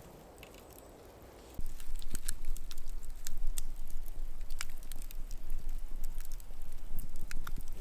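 Scattered sharp crackles and pops over a low rumble, cutting in suddenly about a second and a half in after a quiet rustling haze.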